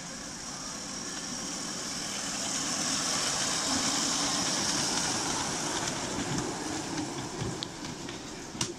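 Ride-on miniature railway train, a small loco hauling passenger cars, passing close by: its running noise and wheels on the rails grow louder to a peak about halfway and then fade as it moves away. There are a few light clicks near the end and one sharp click just before it ends.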